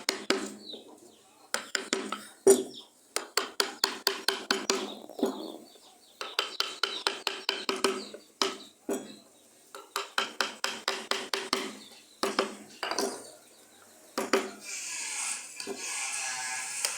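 Hand wood carving: a chisel struck in quick light taps, about five or six a second, in short runs with pauses between. Near the end a steady hiss takes over.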